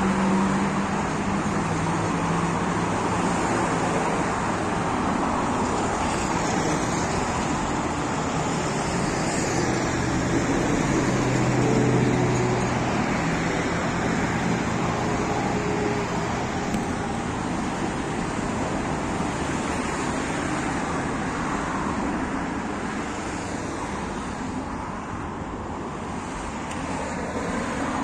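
Steady road traffic on the boulevard alongside: vehicles passing, with a low engine hum that swells about twelve seconds in.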